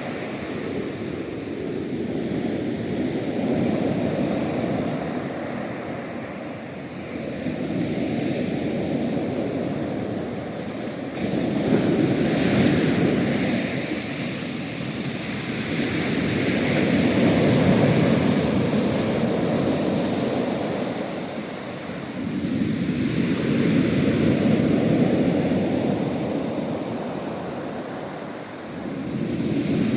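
Sea waves breaking on the shore in a westerly swell: a deep, rushing noise that surges and falls back in slow swells about every five seconds.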